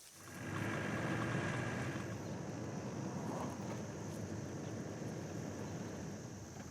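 Steady low rumble of a vehicle engine running, fading in at the start.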